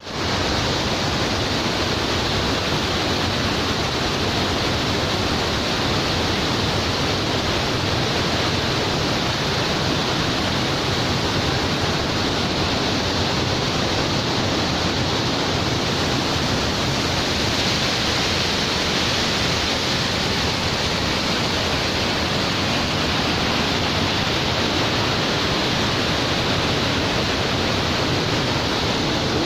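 Waterfall pouring: a steady, dense rush of falling water without a break.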